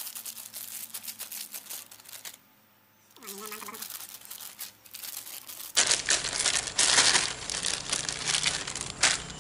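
Thin plastic bag crinkling as hands squeeze and knead soft bait dough inside it, with a short pause about a third of the way in and louder crinkling from a little past halfway.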